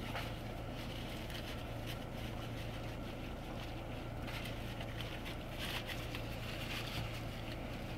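Steady low hum inside a car's cabin with the car running while parked, with a few faint rustles.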